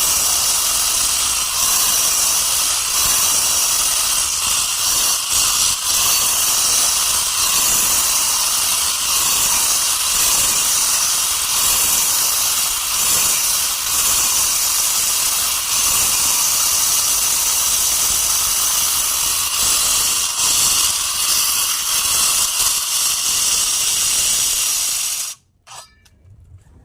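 Power saw cutting through stone, a loud, steady grinding hiss that cuts off suddenly near the end.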